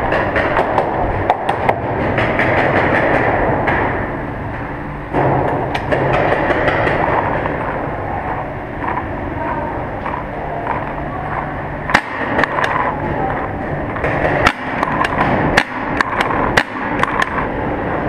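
Paintball game: sharp cracks of markers firing and balls hitting, scattered through and coming more often in the last several seconds, over a constant loud noisy background.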